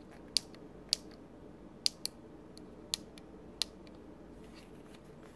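Push buttons on a JYETech DSO 062 oscilloscope board clicking as they are pressed about six times at uneven intervals over the first four seconds, stepping the trigger level up and down.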